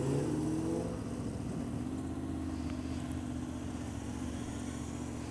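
Motorcycle engines running at low speed as the bikes pull away: a brief rise in pitch in the first second, then a steady low drone.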